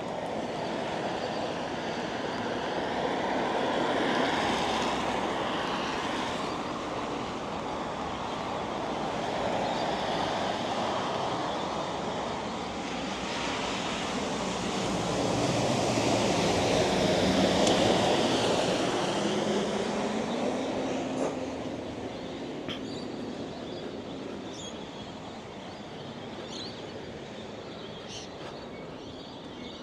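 Several vehicles passing one after another on a wet road, their tyre noise swelling and fading; the loudest, about two-thirds of the way through, has an engine note that drops in pitch as it goes by. It is quieter near the end, with a few faint short high chirps.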